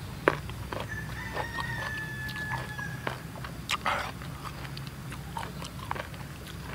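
Crisp crunching and chewing of raw young mango slices, a scatter of sharp crunches with the loudest just after the start and about four seconds in.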